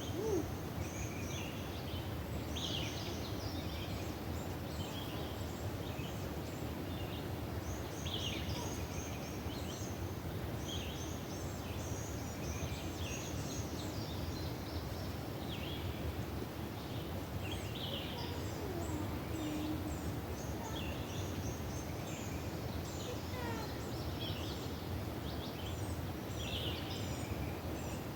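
Several birds calling and chirping repeatedly, short calls every second or two, over a steady low rushing background noise.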